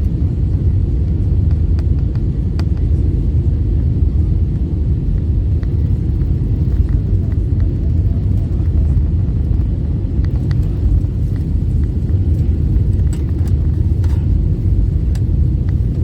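Steady low rumble of an Airbus A320 heard inside the passenger cabin during landing, from the engines and airflow, with a few faint rattles and clicks from the cabin fittings.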